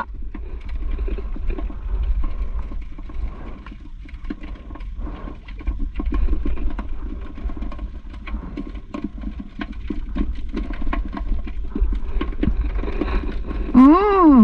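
Scattered clicks and light knocks of a sabiki line being hauled in and small hasa-hasa being unhooked and dropped into a plastic bucket in a small boat, over a steady low rumble. A short rising-and-falling vocal sound comes near the end.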